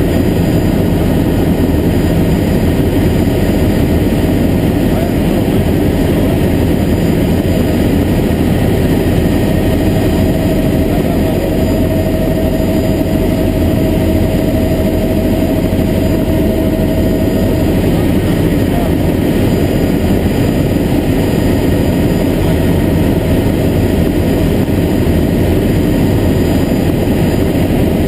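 Helicopter in level flight heard from inside the cabin: a loud, steady drone of engine and rotor that does not change.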